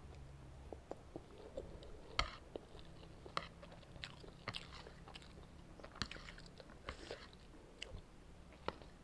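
Close-miked eating of instant noodles: chewing, with scattered sharp mouth clicks and smacks, the loudest about two seconds in.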